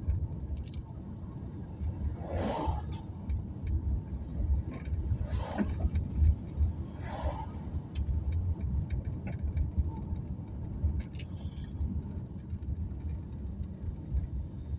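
A car driving along a road: steady low engine and tyre rumble, with three short swishes about 2.5, 5.5 and 7 seconds in.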